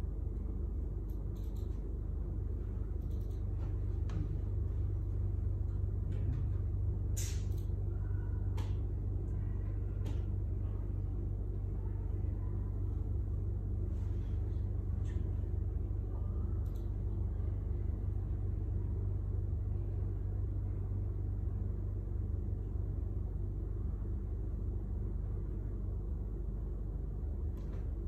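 Kittens purring: a steady low rumble, with a few faint clicks about a quarter of the way in.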